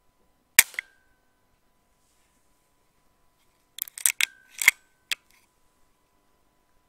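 A single sharp shot from an HW100KT .22 PCP air rifle about half a second in, with a short ring after it. Around four seconds in comes a quick run of about six metallic clicks: the rifle's side lever being worked to chamber the next pellet.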